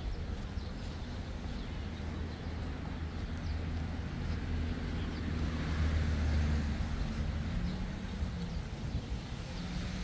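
Street traffic: a motor vehicle's engine running with a low hum, growing louder to a peak about six seconds in as it passes, then easing off.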